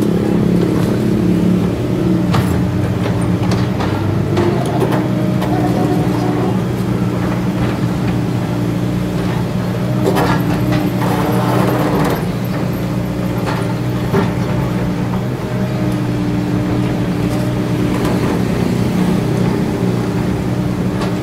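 Kobelco SK200 hydraulic excavator's diesel engine running steadily under load as it digs and swings dirt into a dump truck, with a few knocks of the bucket and a scraping rush about halfway through.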